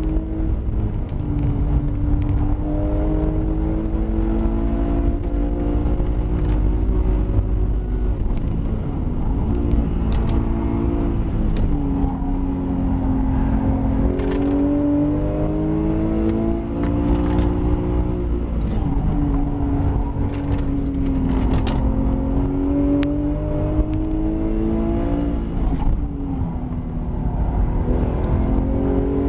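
Porsche 911 GT3 RS flat-six engine, heard from inside the cabin, revving up and down through the gears as the car is driven hard through corners. A few sharp clicks come through in the middle.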